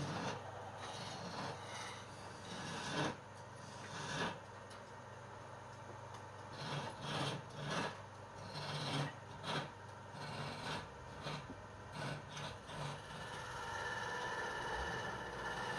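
Wood being worked by rubbing and scraping, in irregular strokes of varying length, over a steady low machine hum.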